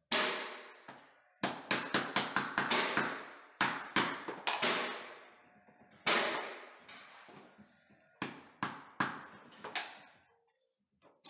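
Rubber mallet tapping the edge of a luxury vinyl plank to seat it into place: about twenty sharp knocks, mostly in quick runs of about five a second with short pauses, each echoing briefly.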